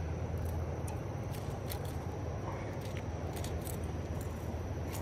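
Steady rush of river water, with scattered small clicks and ticks.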